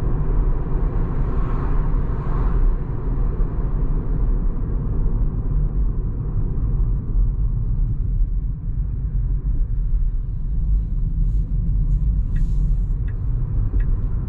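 Steady low road and tyre rumble inside the cabin of a Tesla Model 3 on the move. There is no engine note, only the electric car's rolling noise.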